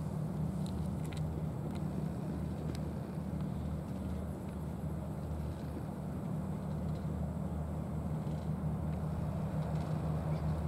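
A steady low motor hum, with a few faint crunching clicks in the first few seconds from a cat chewing dry kibble.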